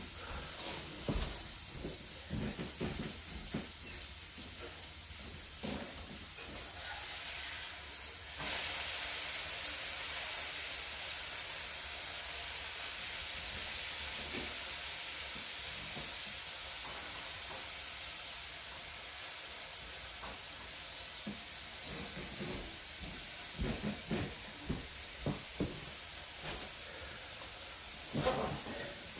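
Shuffling, knocks and creaks as a person gets up out of a folding camp chair and later sits back down in it. In between there is a steady hiss, which gets louder about eight seconds in.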